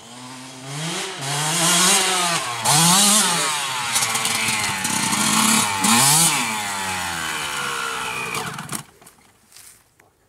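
Dirt bike engine revving hard as the bike rides by, its pitch climbing and falling several times with the throttle. It cuts off near the end.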